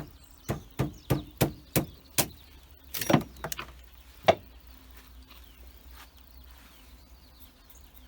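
Sharp knocks and cracks on a firewood log as its bark is broken away to check for beetles: a run of about seven hits roughly three a second, a rough cracking burst about three seconds in, and one last hard knock a second later.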